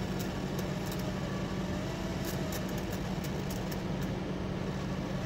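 Steady low hum inside a car cabin with the air conditioning running, with a faint wavering whine in the background.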